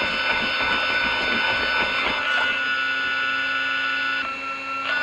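An electric RC truck's sensored brushless motor and drivetrain whining steadily as it crawls slowly over corrugated metal, with uneven knocks from the tyres crossing the ridges in the first half. Some of the whine's tones cut off about four seconds in.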